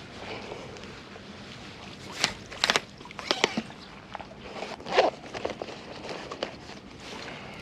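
Fishing gear being handled: a landing net lifted out of the water and put away, with scattered knocks, clicks and rustles. The loudest knock comes about five seconds in.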